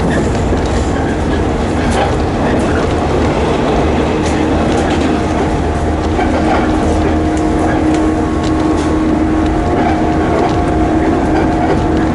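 Electric commuter train running at speed, heard from inside the carriage: a steady rumble of wheels on rail with scattered sharp clicks. About four seconds in, a steady hum joins it and holds.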